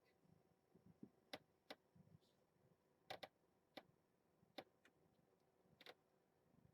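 Near silence with about eight faint, sharp clicks at irregular intervals.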